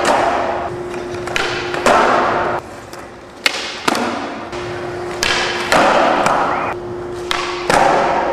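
Skateboard on smooth concrete during flatground tricks: the board rolls, then a series of sharp clacks as the tail pops and the board lands back on its wheels.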